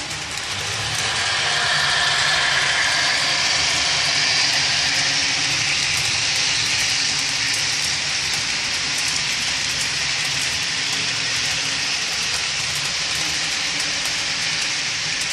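Model freight train rolling past on model track: a steady rolling rattle of wheels with many small clicks over the rail joints, growing louder about a second in. Under it runs the low steady drone of the locomotives' sound-decoder diesel engine.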